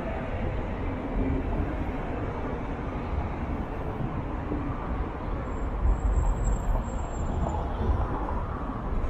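City street ambience: a steady low rumble of road traffic, with a faint high squeal for a couple of seconds past the middle.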